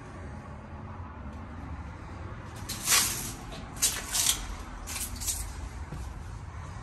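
A wrought-iron security gate and then a front door being opened: a few short scraping, rattling noises, the loudest about three seconds in as the gate swings open, then more around four and five seconds in at the door and its handle.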